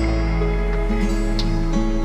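Soft, slow instrumental background music with held notes, a new note coming in about half a second in and again near the end.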